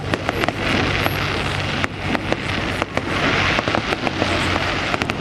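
Fireworks going off in rapid succession: many sharp pops and bangs, with stretches of dense crackling.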